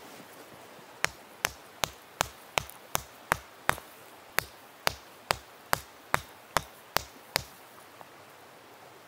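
Stone hammer striking glowing-hot iron axe stock on a stone anvil: a run of about seventeen sharp blows, two or three a second, starting about a second in, with a short pause midway, and stopping a couple of seconds before the end.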